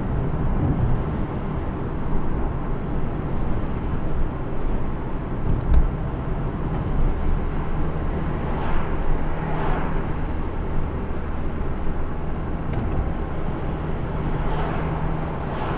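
Car driving along a road: steady engine hum and tyre rumble, with a few whooshes of passing traffic and a brief thump about six seconds in.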